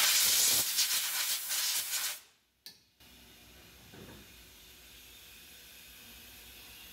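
Compressed-air blow gun hissing in short bursts as it blows aluminium chips off the freshly machined part. It stops abruptly a little after two seconds in, leaving only a low background hum.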